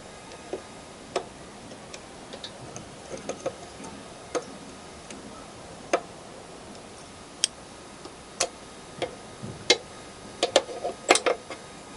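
Irregular sharp clicks and light metallic taps, about fifteen, coming closer together near the end, from hand tools and small metal parts as a circlip is fitted on the motorcycle's rear axle.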